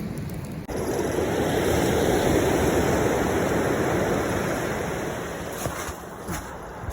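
Sea surf washing on the shore: a rush of wave noise that swells up just under a second in and slowly fades away.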